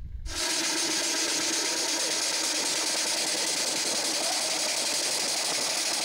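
Homemade steam motorcycle heard from onboard while riding: a steady, even hiss with several steady tones running through it, starting abruptly a moment in.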